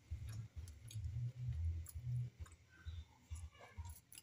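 Irregular low rumbles and thuds from a phone being handled and moved, with a few light clicks.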